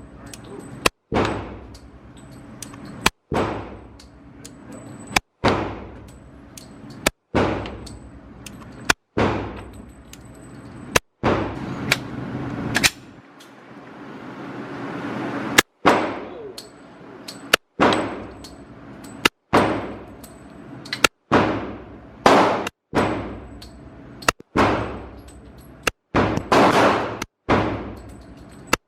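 A .45 ACP pistol firing shot after shot, about one every second or two, each shot ringing out and dying away, with a pause of a couple of seconds about halfway through.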